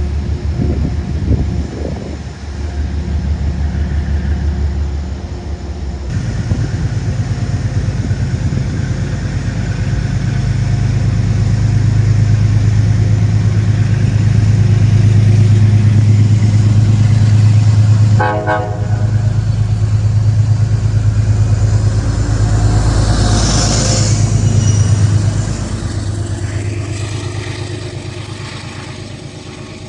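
A train passing close by: a steady low drone that builds, holds loud and then fades away near the end, with one short horn blast about two-thirds of the way through.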